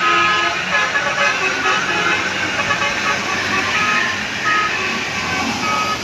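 A bus going by with its engine and road noise, and short notes of a telolet multi-tone musical air horn sounding now and then.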